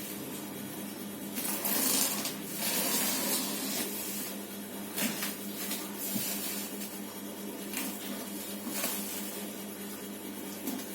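Packaging of a TV box being opened by hand: two long stretches of rustling or tearing about two to four seconds in, then a few scattered clicks and knocks as the packing is handled.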